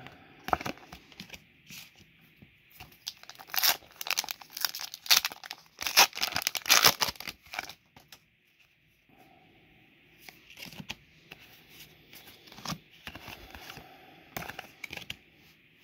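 Foil booster-pack wrapper crinkling and tearing, a dense run of sharp crackles lasting about four seconds in the middle, then softer clicks and rustles of trading cards being handled.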